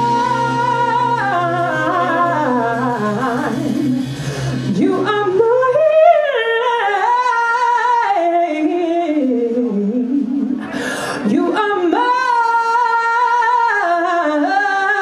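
Live blues band with a lead vocal; about five seconds in the instruments drop out and the voice carries on unaccompanied, sliding up and down through long held notes.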